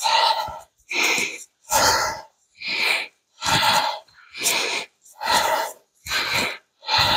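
A man breathing hard and fast in a breathwork exercise: sharp, forceful breaths in and out, about one a second, in a steady rhythm.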